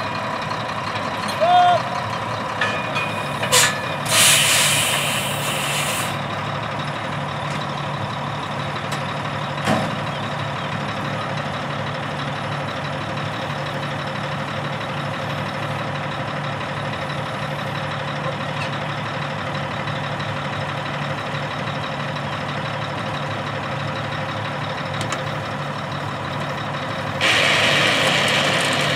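Mack R-series truck's diesel engine running steadily while its seed tender loads soybean seed into the commodity cart. A loud burst of hissing lasting about two seconds comes about four seconds in, and another comes near the end.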